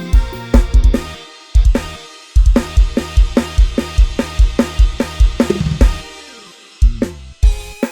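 Programmed drum kit (Addictive Drums 2) and sampled bass playing a Thai lai hae procession groove, with kick, snare, hi-hat and cymbal over a bass line. The groove stops briefly twice early on, then runs on with a falling run of notes and drops out once more near the end before the beat comes back.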